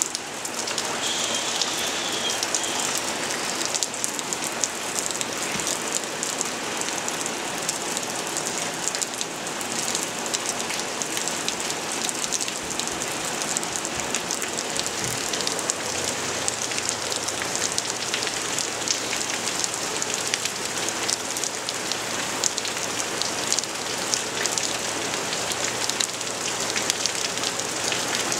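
Steady rain falling on a wooden deck and lawn: a constant patter of many drops.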